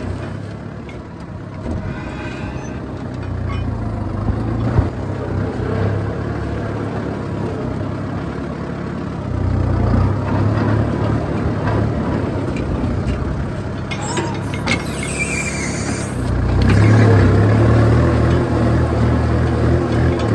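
Kubota M6240 tractor's four-cylinder diesel engine running steadily under ploughing load while its disc plough cuts through dry soil and stubble. The engine note swells louder a few seconds before the end.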